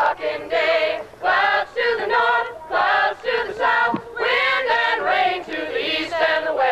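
Several voices singing together in short phrases with brief breaks between them, like a choir or group chant.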